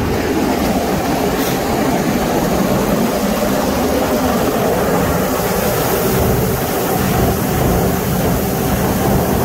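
Steady running of fertilizer-loading machinery, with a granular blend of 11-52 phosphate and potash pouring from a hopper bin onto a belt conveyor.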